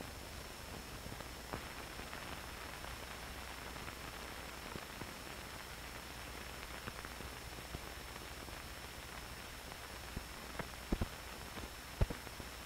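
Surface noise of an old film print's optical soundtrack with no programme sound on it: a steady hiss with a faint high whine and a low hum, dotted with scattered clicks and crackles. A sharp click comes right at the start, and a few louder pops come near the end.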